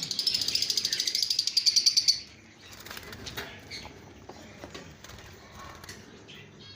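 Lovebirds giving a fast, pulsing high-pitched chatter that stops abruptly about two seconds in, followed by soft scattered chirps and light clicks.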